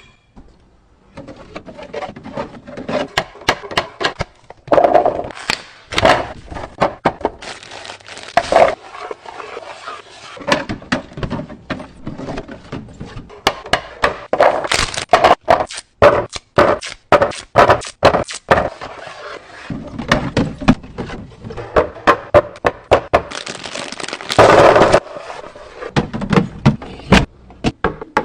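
Hard plastic organizers and items being set down, slid and knocked against one another while a refrigerator is being stocked: a steady run of irregular clicks, thunks and scrapes. Several louder stretches of rustling or scraping come around a quarter of the way in, midway and near the end.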